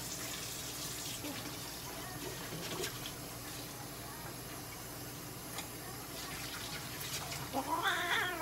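Steady rushing noise, like running water, with a few faint clicks. Near the end comes a short call that rises and falls in pitch.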